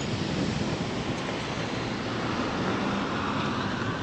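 Steady rush of wind on the microphone over a small motorcycle riding along a gravel road.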